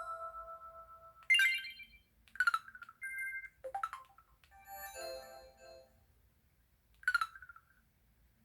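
Samsung Anycall SPH-V9500 slim folder phone playing its built-in alert sounds one after another: a melody's last note fades out, then a series of short electronic chirps, two-tone beeps and a brief jingle follow with pauses between them.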